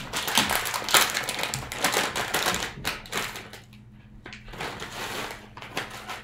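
Plastic snack bag of animal crackers crinkling as it is handled and opened, in two spells of dense crackle with a short pause between them.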